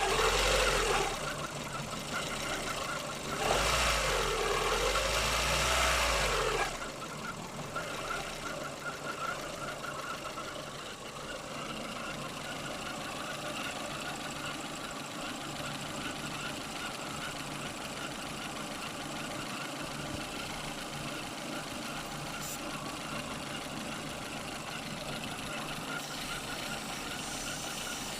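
Lada VAZ-2115 car engine idling steadily, with two louder stretches of noise in the first seven seconds; the car has a squeak that its owner cannot place.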